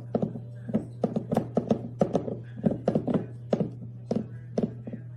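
A quick, uneven series of sharp knocks or taps, some with a short ring, over a steady low hum; they thin out near the end.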